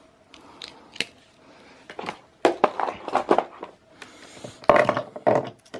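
Swiss Army pocketknives being handled: a few isolated clicks, then two clusters of sharp clicks and rattling scrapes in the second half.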